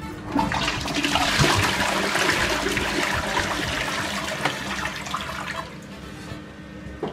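Toilet flushing: water rushes into the bowl about half a second in, is loudest over the next couple of seconds, then dies away before the end.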